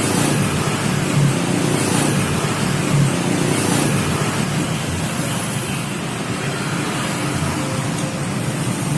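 Steady low rumble of motor vehicle noise, with no horn or voice standing out.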